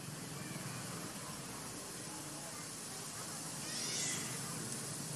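Macaque giving a short, high-pitched squealing call about four seconds in, with fainter calls earlier, over a steady background hiss.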